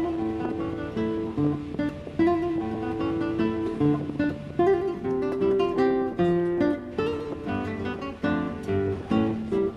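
Background music on acoustic guitar, a steady run of plucked and strummed notes.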